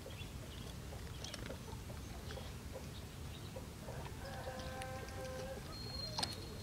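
A chicken calling in the background: one drawn-out call about four seconds in, among scattered faint chirps. A sharp click comes near the end.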